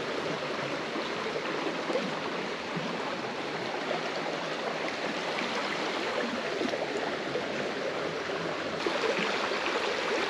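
Shallow creek water running over a rocky riffle: a steady, even rush of flowing water.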